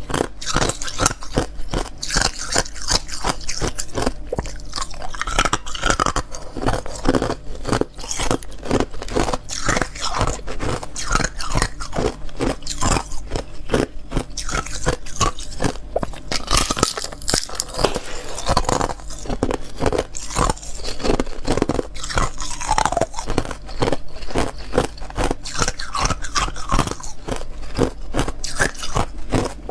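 Close-miked biting and chewing of thin moulded ice: a dense, continuous run of crisp crunches and cracks as the ice shatters between the teeth.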